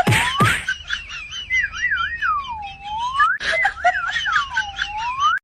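A whistle sliding up and down in pitch, in quick wavering swoops and slower, deeper dips, with a few sharp clicks or taps in between. It cuts off suddenly at the very end.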